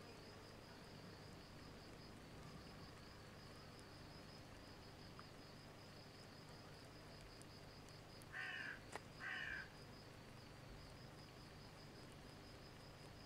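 Quiet outdoor ambience: an insect trilling steadily in a high, evenly pulsing note, with two short harsh calls a little after eight seconds in.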